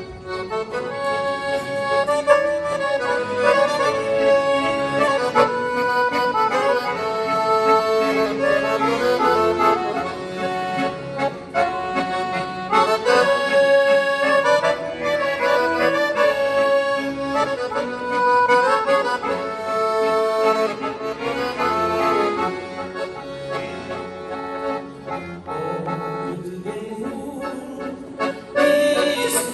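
Two piano accordions playing a hymn tune together as an instrumental duet, with no singing; the playing grows softer over the last several seconds.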